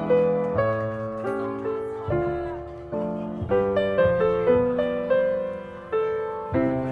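Piano music: notes and chords struck one after another, each fading away before the next.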